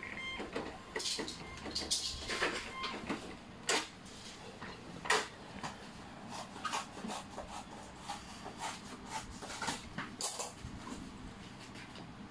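Handling noise: scattered, irregular clicks, taps and rustles as a steel combination wrench and the phone filming it are held and turned in the hand.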